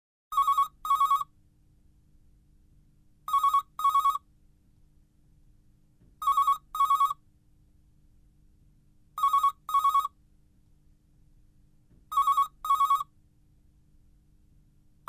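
Telephone ringing in a double-ring cadence: two short rings, a pause, then two more, repeating about every three seconds, five times, with a sixth double ring starting at the very end.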